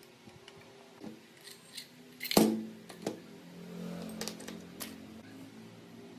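Metal parts and tools being handled: scattered light clicks and clinks, with one sharp metallic knock about two and a half seconds in that rings briefly.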